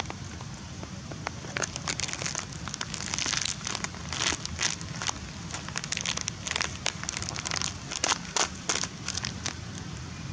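Long-tailed macaque handling and eating food: irregular crinkling and crackling clicks, thickest through the middle, over a steady low rumble.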